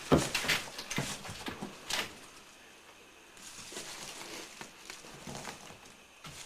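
A sharp loud knock, then several lighter clicks and knocks over the next two seconds, followed by faint rustling.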